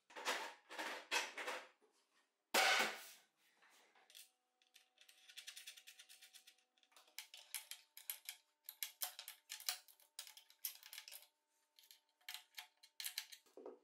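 Faint metal clicks and clinks of a bolt, washer and nut being handled and the nut threaded on by hand, fastening a table saw's steel rail to a plywood base. A few louder scraping noises come in the first three seconds, then a run of small quick clicks in the second half.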